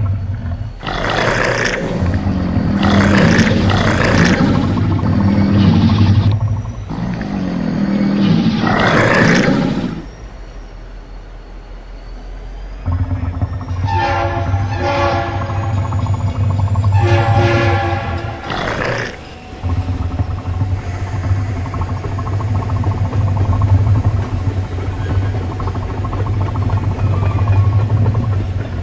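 Several loud animal roars in quick succession over a low rumble. After a short lull comes a diesel freight locomotive's engine rumble with two blasts of its multi-chime air horn. Then one more roar, and the locomotive engine running steadily.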